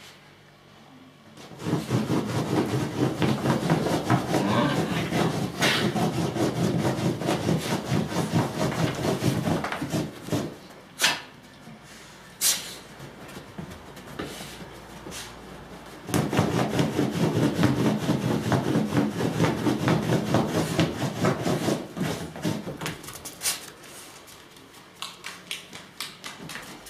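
Basenjis play-fighting, growling and scuffling in two long bouts, with a couple of sharp knocks in the pause between them.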